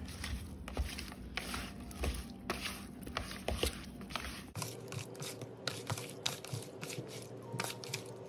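Raw shrimp being mixed by hand with dry seasoning in a plastic bowl: faint, irregular squishing and small clicks as the shrimp are squeezed and tossed against the bowl.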